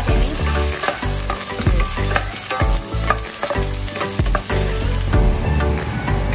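Sliced red onion and garlic sizzling in hot oil in a stainless steel pan, stirred with a spatula that scrapes and taps against the pan again and again.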